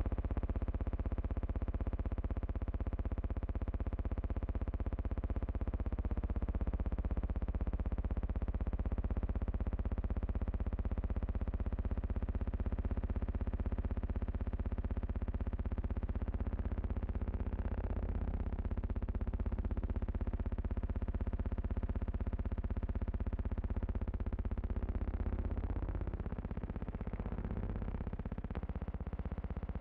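Steady electronic drone like a synthesizer pad, held tones over a deep hum, sliding slowly in pitch a few times. It is not the sound of the tractors.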